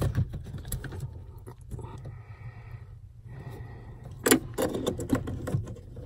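Plastic electrical connectors being handled and snapped back on under a car's dashboard: scattered small clicks and rattles, with one sharp click a little over four seconds in. A steady low hum runs underneath.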